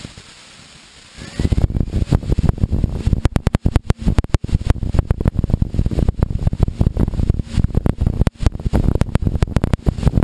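Piper Archer's engine at full takeoff power during the takeoff roll. It is heard as a loud, rough, crackling rumble that comes in suddenly about a second and a half in, after a quieter moment.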